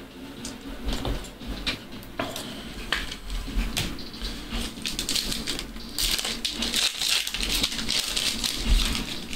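Trading cards and a foil pack wrapper being handled: light clicks and taps of card stock, with a crinkly rustle of foil from about six to eight seconds in.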